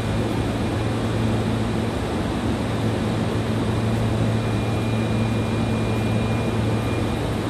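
Steady low hum of a stationary Osaka Metro 25 series subway train's onboard equipment at an underground platform, with a faint thin high tone coming in about halfway through.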